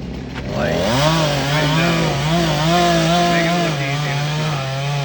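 Chainsaw revving up about half a second in, then running at high speed with its pitch wavering as it cuts through the tree trunk.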